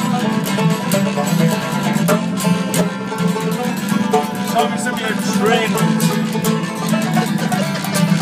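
Acoustic guitar strummed fast in a live folk jam, with other plucked strings playing along.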